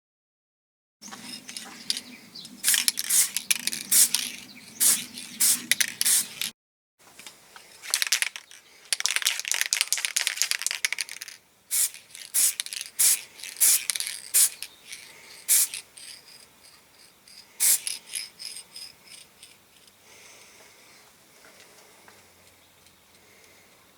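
Bursts of rapid rattling and clicking from small hard objects being handled, with some scraping, broken by two brief dead-silent cuts; the sound thins out and grows quieter in the last third.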